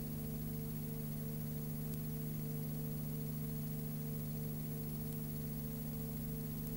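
Steady electrical hum of several low tones under an even hiss, with nothing from the scene itself: the noise floor of a silent Super 8 cine film transfer.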